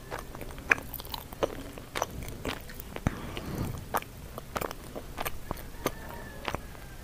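Close-miked chewing of a mouthful of sweet potato leaves, with frequent irregular wet clicks and lip smacks.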